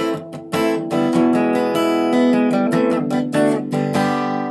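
Background music of a strummed acoustic guitar playing a quick rhythm of chords. The last chord is struck near the end and left ringing.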